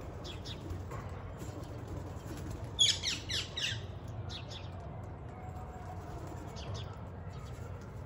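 Wild green parakeets calling: a quick run of four or five loud, harsh shrieks about three seconds in, with a few short, fainter calls before and after it.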